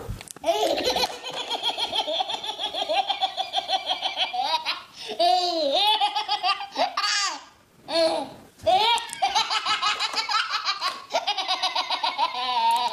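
A baby belly-laughing hard, in long runs of quick, repeated laugh pulses with short breaks near the middle.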